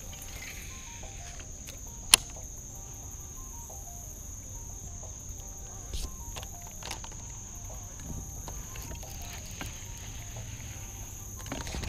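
Steady high-pitched drone of insects in the background, with low wind noise. A single sharp click about two seconds in is the loudest sound, and lighter knocks follow near six and seven seconds.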